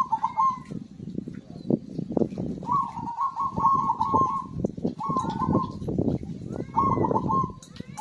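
Zebra dove (perkutut) singing its rolling, stuttered coo phrases, about four in a row with short pauses between, the longest about three seconds in. A dense low rumble with many knocks runs underneath.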